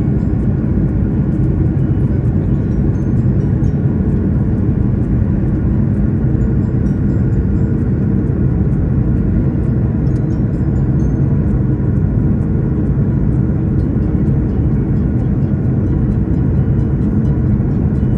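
Airliner cabin noise: the steady low hum of jet engines and rushing air inside the cabin, unchanging throughout.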